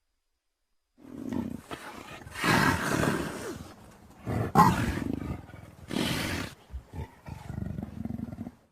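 Sound-effect vocalizations of a Troodon dinosaur: a run of separate raspy calls and growls after a second of silence. The loudest is a sharp cry with a falling pitch about halfway through, and it ends in a rattling stretch.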